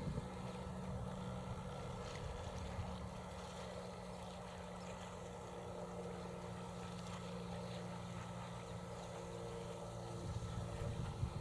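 Steady low drone of a distant engine or motor.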